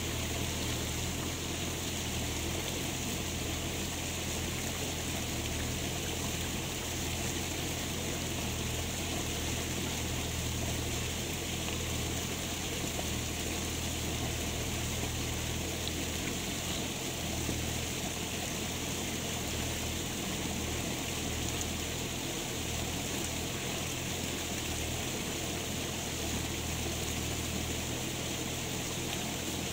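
Steady rushing of water with a low rumble underneath, unchanging throughout.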